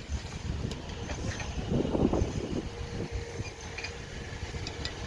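A construction machine's diesel engine running with a low, steady rumble, growing louder for a moment about two seconds in.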